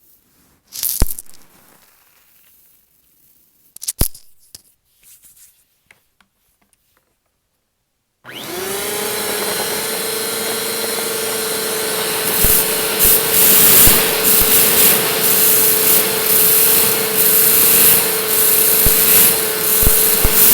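A few short handling clicks, then a vacuum cleaner switches on about eight seconds in, its motor whine rising quickly to a steady pitch. From about twelve seconds in, a crackling rattle of rice being sucked up joins the steady motor noise.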